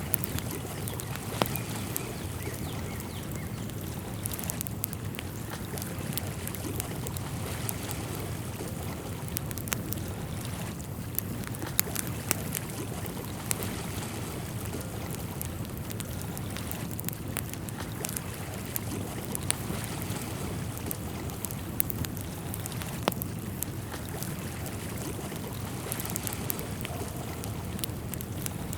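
Outdoor nature ambience: a steady low rush of wind and water with scattered light clicks and ticks.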